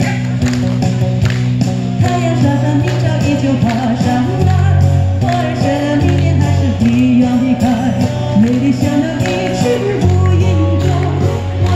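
A woman singing a Chinese folk-song medley into a microphone over amplified live accompaniment with guitar and sustained low chords, heard through the PA. Her voice comes in about two seconds in.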